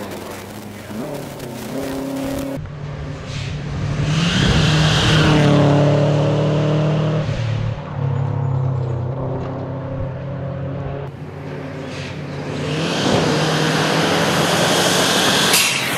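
Rally cars at full throttle on a gravel stage, passing close twice with the engine note rising and falling through gear changes. Gravel hisses under the tyres as each car goes by.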